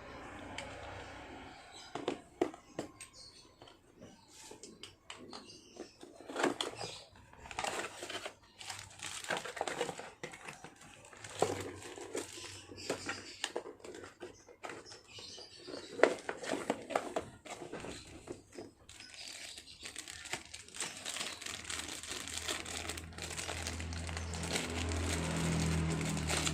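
Crinkling and rustling handling noise with irregular small clicks and a few sharper knocks.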